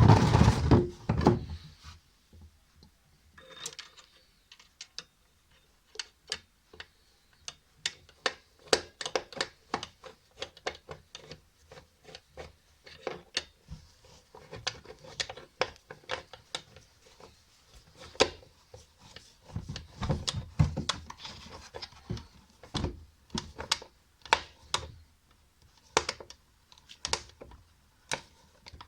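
Screws being driven in by hand to fix a washing machine's gearbox in place: irregular clicks, scrapes and small knocks of the tool and screws on metal, with a louder clatter at the start.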